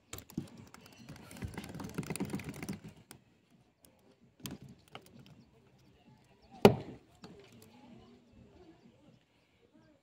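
A small, just-caught fish being landed and handled on wooden jetty planks: a scraping rustle in the first few seconds, then scattered knocks on the boards, the loudest a sharp thump about two-thirds of the way through.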